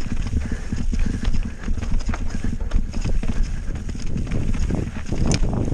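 Santa Cruz Nomad 4 mountain bike clattering down a rocky trail: rapid, irregular knocks and rattles from tyres hitting rocks and the bike's frame and drivetrain, over a steady low rumble.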